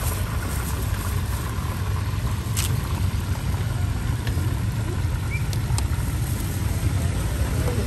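Steady low rumble of outdoor street ambience, with a few faint clicks.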